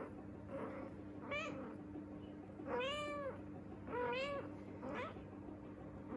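Three-week-old Persian kittens mewing: several short, high, arching mews, the longest and loudest about three seconds in.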